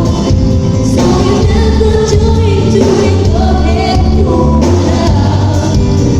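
A woman singing a pop song live over a loud, bass-heavy band accompaniment.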